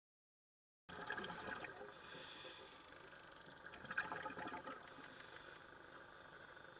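Faint underwater ambience: water swishing and bubbling. It starts suddenly about a second in, with a short cluster of clicks about four seconds in.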